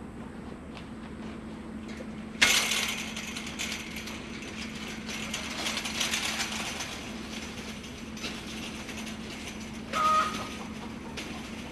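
Steel chain-link dog kennel panel rattling and clanking as it is lifted and carried, starting suddenly about two seconds in and running on unevenly for several seconds. A short pitched squeak or call comes near the end.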